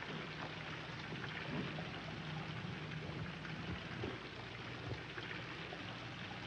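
Faint, steady hiss with a low hum underneath: the background noise of an old television soundtrack.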